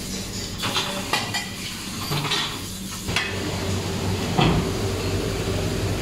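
Pre-rinse spray hissing onto crockery in a stainless steel sink, with dishes clinking and knocking together several times, over a steady low hum.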